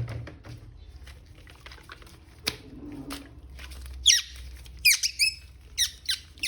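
Toy packaging handled during an unboxing: light clicks and rustling, then, from about four seconds in, a quick run of sharp, high squeaks that slide down in pitch.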